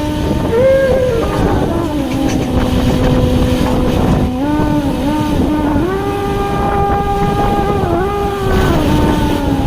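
A motor engine running with a strong hum over a rough rumble, its pitch holding, then gliding up or down to a new level several times, as if the revs are changing.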